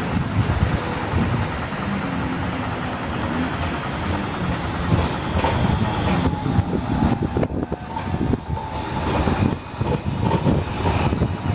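Traffic noise on a wet road with a low, uneven rumble, as an Alstom Citadis 302 low-floor tram approaches slowly. A faint steady whine appears from about halfway through.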